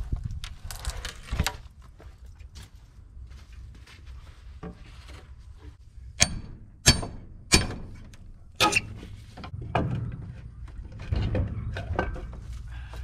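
Old wooden feeder boards being knocked loose with a steel crowbar and hammer: a string of sharp knocks, the loudest four a little past the middle, some with a short metallic ring, among smaller knocks and scrapes.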